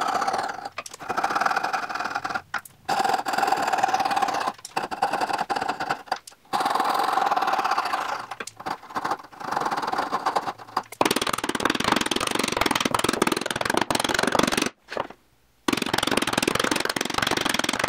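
Coping saw cutting out the waste between hand-cut dovetail pins in a wooden board: runs of quick back-and-forth strokes with short breaks. About eleven seconds in, the sawing turns harsher and denser.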